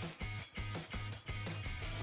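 Outro background music with a steady rhythm.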